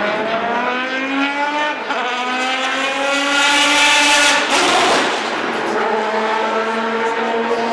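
Ferrari 550 Maranello GT race car's V12 accelerating past, its pitch climbing through the gears with upshifts about two seconds in and again near five seconds. It is loudest as the car passes closest, near the middle.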